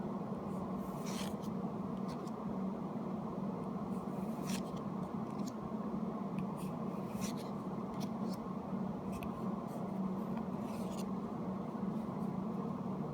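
Pokémon trading cards being slid and flipped by hand, giving a few short papery swishes every couple of seconds over a steady low background hum.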